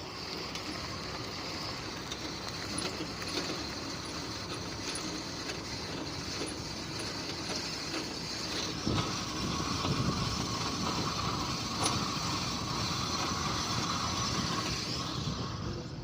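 Car being driven with a loud, steady noise from a wheel whose bearing hub has broken, with scattered clicks.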